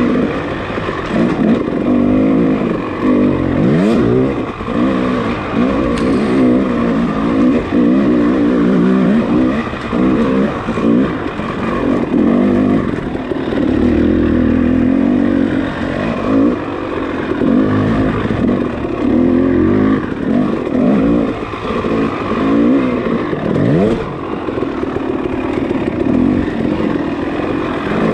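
Dirt bike engine revving hard and falling off again and again as the rider works the throttle and gears through an enduro course, with a few light clatters.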